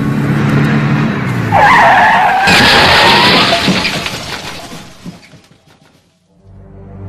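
A car's engine running, then tyres squealing in a skid about a second and a half in. About a second later comes a sudden loud, harsh burst with a shattering edge, which dies away over the next three seconds.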